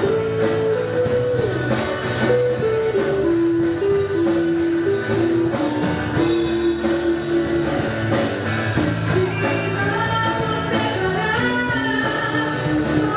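Gospel band music: drum kit, bass and guitar under a melody of long held notes that step up and down.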